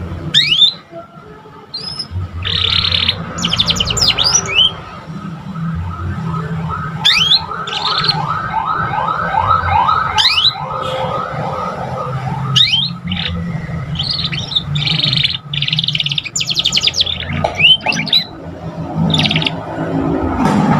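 Young domestic canary practising its song: a loose string of quick rising chirps and short buzzy phrases, with a run of evenly repeated trill notes in the middle. A steady low hum runs underneath.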